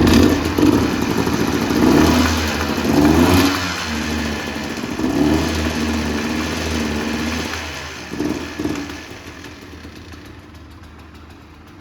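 Honda CRM 250R two-stroke single-cylinder engine revved in several blips, settling back toward idle near the end. The engine has a worn piston and rings that the owner says need replacing, with the cylinder rebored.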